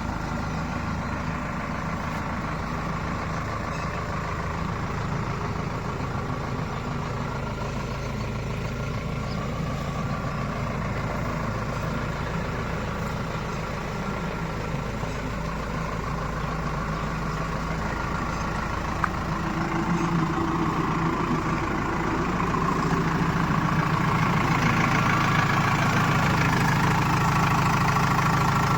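Heavy diesel engine running steadily at a low idle, then picking up and getting louder about three quarters of the way through, as when working machinery takes on load.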